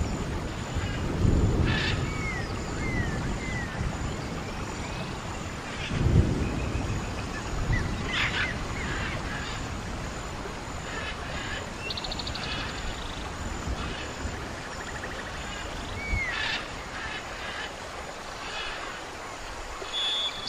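Birds calling: scattered short chirps and gliding whistles, with a fast trill about twelve seconds in. Wind rumbles on the microphone in gusts, strongest about a second in and about six seconds in.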